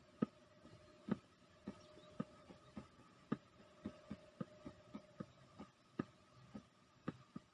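Faint irregular clicks and taps, roughly two a second, over a faint steady hum.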